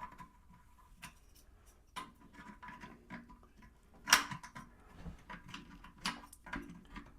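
Wrench clinking and scraping against a toilet seat's mounting bolt and nut as it is tried on: a string of light clicks and knocks, with one sharp clink about four seconds in.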